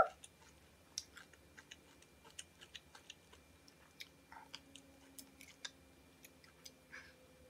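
A person chewing a hot pepper: faint, scattered clicks and crunches from the mouth.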